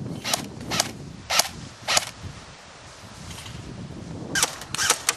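Airsoft rifle fired single shot by single shot: four sharp cracks about half a second apart, then after a pause a quick burst of several more near the end.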